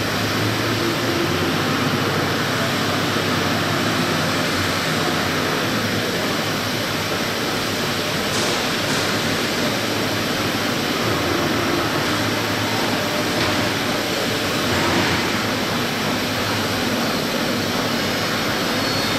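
Steady workshop machinery noise: an even rushing sound with a faint low hum underneath, unchanging throughout.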